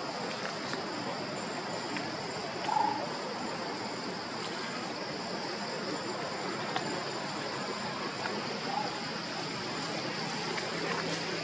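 Steady outdoor ambience: an even hiss with a constant high-pitched drone, and one short squeak a little under three seconds in.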